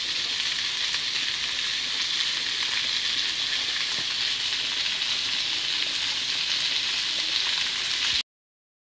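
Sliced sausage and pork pieces sizzling in hot fat in a frying pan, a steady hiss that cuts off abruptly near the end.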